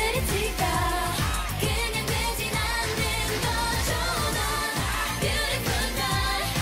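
K-pop song playing: singing over a steady beat with deep bass.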